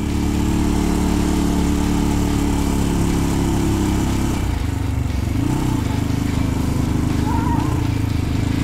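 Motorcycle engine running under way, pulling up a steep lane. About four seconds in, the engine note breaks and settles slightly lower, then runs steadily again.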